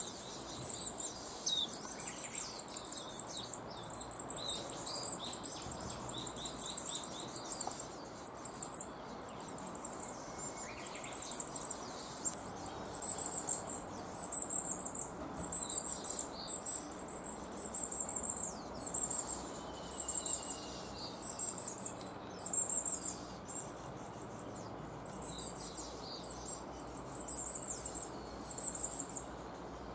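A family of long-tailed tits, adults and fledglings, calling almost without pause: strings of very high, thin notes broken by short gaps, mixed with rougher, lower calls.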